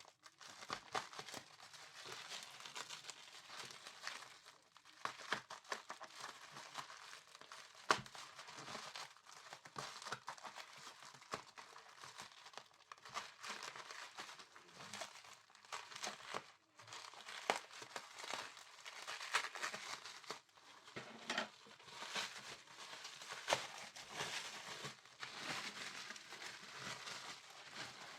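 Protective packaging being unwrapped by hand: irregular crinkling and rustling, with occasional tearing and sharper crackles.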